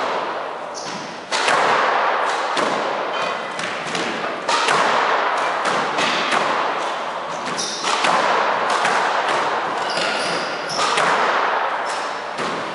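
Squash rally: the ball is struck by the rackets and smacks the court walls about every three seconds, each hit a sharp thud with a long echo, and sneakers squeak on the wooden floor between shots.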